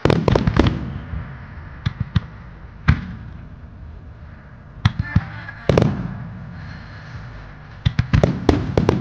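Aerial firework shells of a Japanese starmine bursting in quick succession, each sharp bang trailing off in echo. A rapid cluster of bangs comes at the start, scattered single bangs follow, and another rapid cluster comes near the end.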